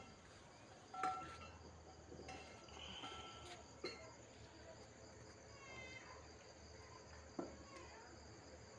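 Crickets chirping at night in a faint, steady, high-pitched chorus, with a few soft knocks now and then.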